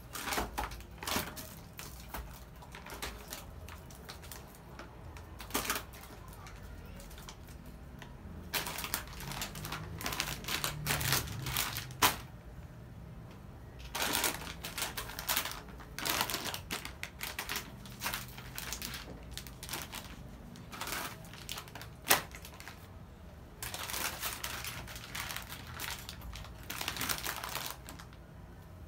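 Plastic product packets crinkling and rustling, mixed with irregular clicks and knocks of cartons and tin cans being handled and set down, including a couple of sharper knocks.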